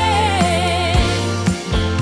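Background music with a steady beat; a wavering held melody note fades out about a second in.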